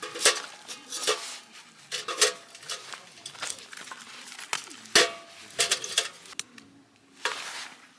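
Metal cookware and utensils clinking and knocking against each other, as when stirring and handling pots and dishes; some strikes ring briefly. A short rush of noise comes near the end.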